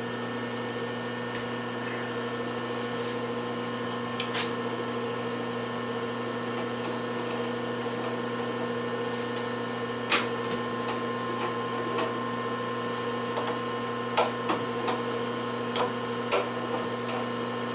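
Steady electric hum of shop machinery, with scattered light metallic clicks and ticks as a thread tap held in a milling machine's drill chuck is turned by hand to start new threads in a stripped bolt hole. The clicks come more often in the second half.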